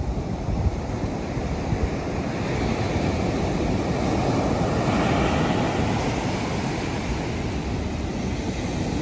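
Ocean surf breaking and washing up a beach, swelling about halfway through, with wind rumbling on the microphone.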